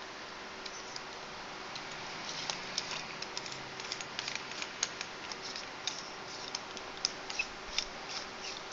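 Light, irregular metallic clicks, taps and scraping of the polished metal tube sections of a Congestus tube mod, handled and screwed together on their fine threads.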